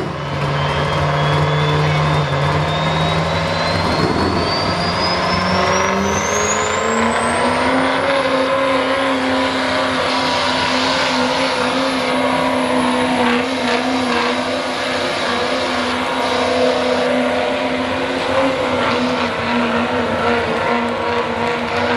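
Chevy 2500 diesel pickup pulling a sled at full throttle. Its revs climb over the first several seconds with a high turbo whistle rising alongside, then hold steady at high revs for the rest of the pull.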